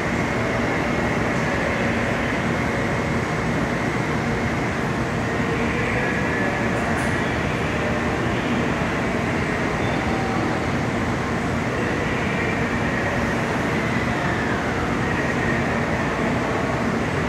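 Steady hum and rushing noise of a 700 Series Rail Star shinkansen standing at a station platform with its systems running, the level unchanging throughout.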